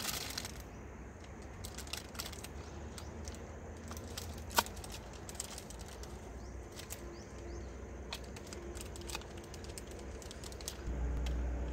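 Hands working a plastic funnel-type pheromone trap: scattered light clicks and plastic rustling, with one sharp click about four and a half seconds in. A low rumble rises near the end.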